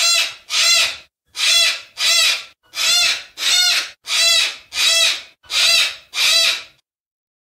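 Sulphur-crested cockatoo giving ten harsh screeches in a row, about one every two-thirds of a second, that stop shortly before the end.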